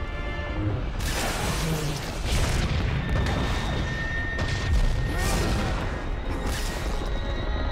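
Film soundtrack of a space battle: a run of explosions, the first about a second in and more following, over music.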